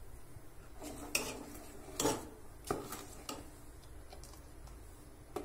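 A steel ladle stirring liquid in a stainless steel pot, clinking against the pot several times. The loudest clink comes about two seconds in.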